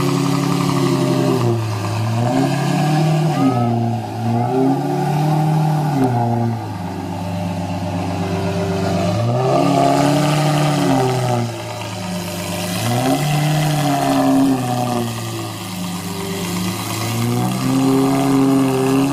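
Lamborghini Murciélago V12 revved repeatedly while standing: the engine note rises sharply and falls back to idle about six times.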